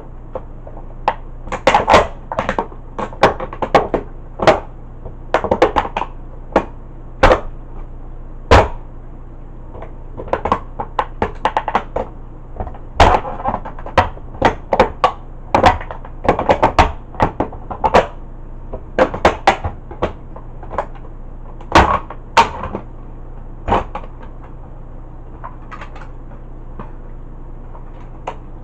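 Cowboy boots stomping on a Tonka toy tow truck: a string of sharp, irregular knocks, often in quick clusters, as the toy cracks and pieces break off. The knocks thin out over the last few seconds.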